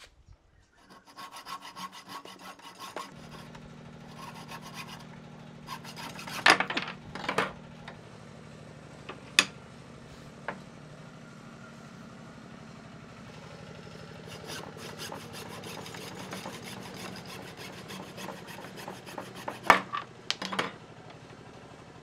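Wood being rasped or sanded, with rhythmic rubbing strokes. About three seconds in, a machine motor starts and hums steadily under it. Several sharp, louder scrapes stand out, the loudest near the end.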